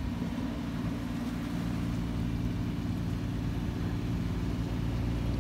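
Boat engine running at a steady speed, a low even drone with no change in pitch, under light water and wind noise.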